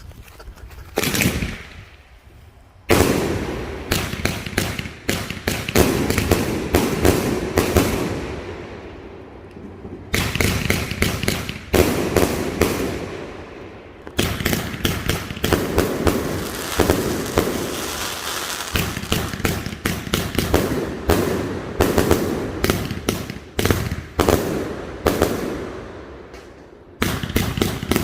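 221-shot "Monster Trucks" firework cake firing. A single bang comes about a second in, then from about three seconds in come dense volleys of rapid bangs and crackle, broken by short lulls between barrages.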